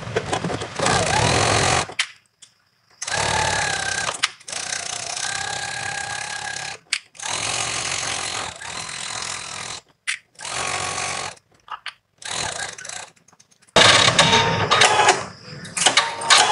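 Electric domestic sewing machine stitching in short runs, stopping and starting several times, with a steady motor whine while it runs. A louder, choppier stretch comes near the end.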